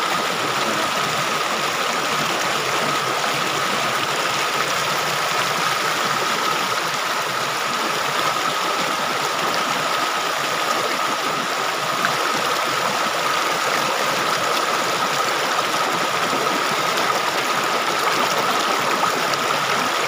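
Mountain stream rushing over and around boulders, a steady rush of white water with the microphone close to it. A faint steady tone runs through it.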